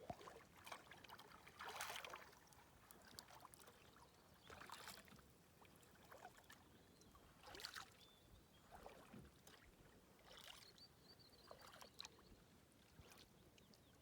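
Faint splashes of a kayak paddle dipping into the water, one stroke about every one and a half seconds.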